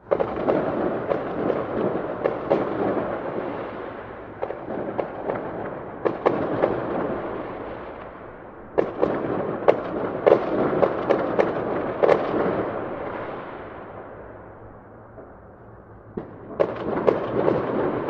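Fireworks going off: a dense crackle of many bangs and pops. It starts suddenly and comes in waves, building again about six seconds in, about nine seconds in, and near the end.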